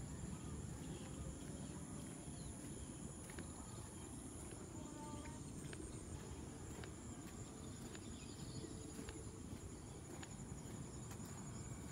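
Faint outdoor ambience: a steady high-pitched insect buzz, in two tones, one of which stops about halfway through, over a low, even rumble, with a few faint ticks.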